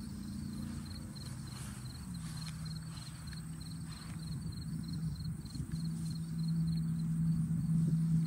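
A steady low engine hum that grows louder in the second half, with an insect chirping in a fast, even pulse above it.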